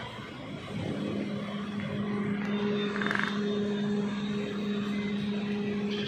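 Heavy diesel engine of construction machinery running at a concrete pour, a steady drone that comes up about a second in and holds.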